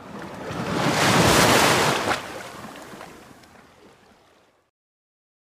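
Ocean surf: one wave swelling up to a peak and washing away, fading out over a few seconds.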